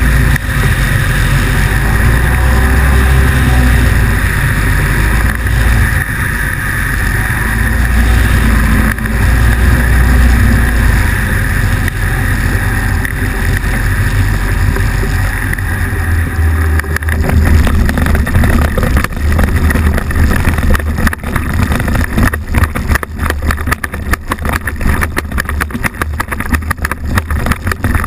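Motorized hang-glider trike's engine and propeller running steadily, with heavy wind on the microphone, during a low approach. About two-thirds of the way through, the sound turns choppy and uneven, a rapid pulsing, as the trike comes down onto grass.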